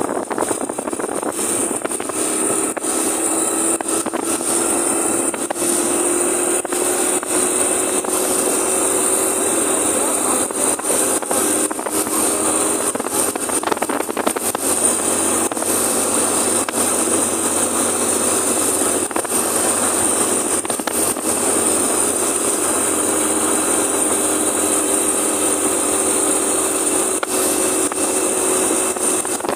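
Small single-cylinder commuter motorcycle engine running at a steady cruising speed, its hum rising gently in the first few seconds and then holding, under a constant rush of wind and road noise.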